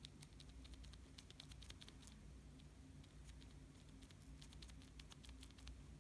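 Faint, irregular light ticking and pattering of glitter being sprinkled from the scoop end of a metal cuticle pusher onto a gel nail tip and the tissue paper beneath. The ticks come in clusters and thin out around the middle.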